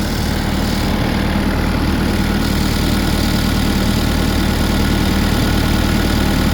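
The diesel engine of a 2015 New Holland skid steer running steadily at idle, with a low, even hum. The speaker next says there is no blow-by, a sign of a healthy engine.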